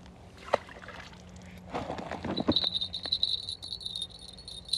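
Crickets trilling: a steady, high-pitched song that starts about halfway in, after a brief rustle.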